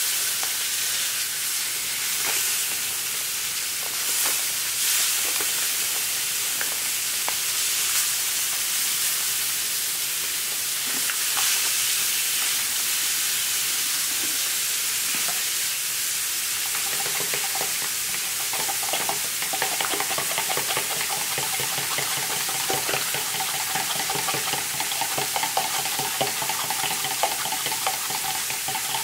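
Brown gravy mix powder poured and shaken from paper packets into a plastic measuring cup of beef broth, with a steady hiss. A little over halfway through, a fork starts whisking the mixture, with rapid clicks against the plastic cup.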